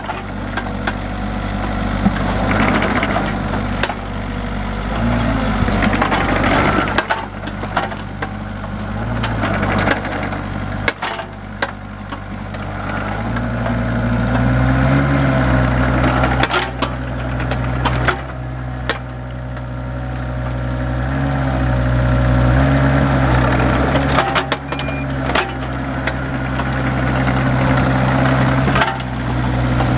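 2009 Kubota KX221-3 mini excavator's diesel engine running, its pitch and load rising and falling several times as the machine is worked, with scattered knocks and clunks over the engine.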